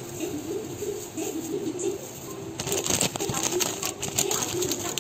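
A hamster scrabbling in dry paper bedding and against the cage wall: light rustling with a quick run of clicks from its claws about halfway through.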